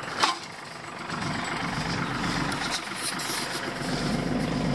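Engine of a small towing vehicle running steadily under load as it pulls a boat trailer over grass, growing louder from about a second in. A brief knock comes right at the start.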